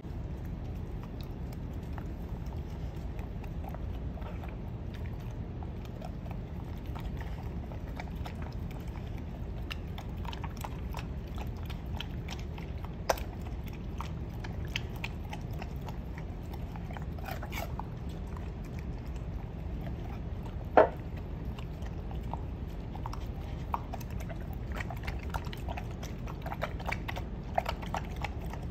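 Golden retriever puppy eating from a ceramic bowl: wet licking and chewing with scattered small clicks. About twenty seconds in there is one sharp, ringing clink against the bowl.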